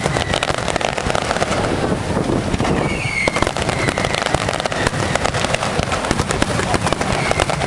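Firework finale barrage: aerial shells bursting in quick, overlapping succession, a steady run of bangs with no pause. A short high whistle sounds over the bangs three times: near the start, about three seconds in, and near the end.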